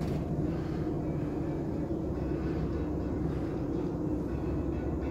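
Steady low rumble of a Brittany Ferries ship's engines and onboard machinery, heard inside a passenger lounge.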